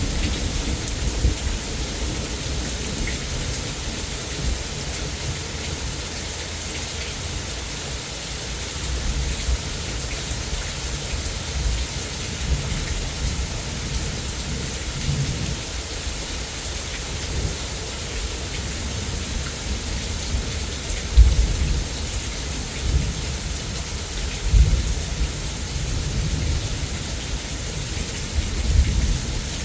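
Heavy rain pouring steadily during a thunderstorm, with thunder rumbling low underneath. Louder rolls of thunder come about two-thirds of the way through and again near the end.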